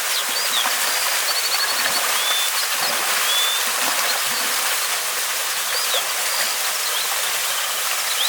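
Steady rush of a mountain stream and waterfall, with small birds chirping above it: short whistled notes and a quick trill.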